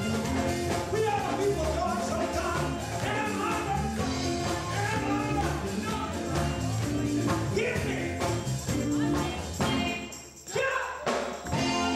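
Live gospel music: a band playing with singing over a steady bass line, dropping away briefly about ten seconds in before picking up again.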